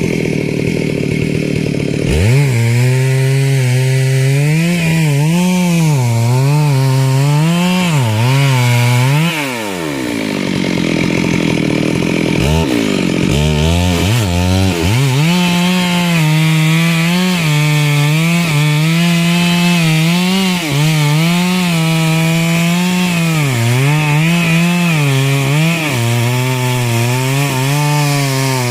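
Two-stroke chainsaw cutting wood, its engine pitch wavering up and down under load. It revs up about two seconds in, drops away and stops for a couple of seconds, then revs again and keeps cutting.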